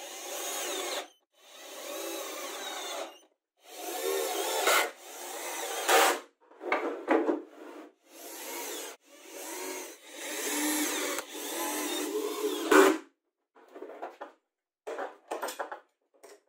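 Cordless drill/driver running screws into plywood in a series of separate runs, each a second or two long, its motor pitch rising as it spins up. Near the end there are a few short clattering knocks.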